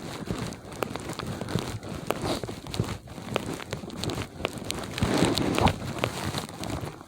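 Footsteps crunching through ankle-deep snow: irregular crunches, a little louder near the end.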